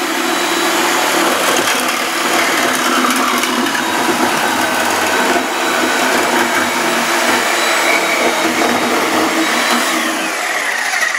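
A loud motor-driven machine running steadily, a whirring roar, with its pitch falling slightly near the end.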